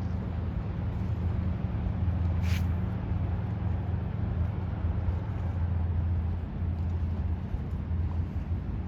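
Low, steady drone of the bulk carrier Federal Ruhr's diesel engine as the ship passes, with a brief hiss about two and a half seconds in.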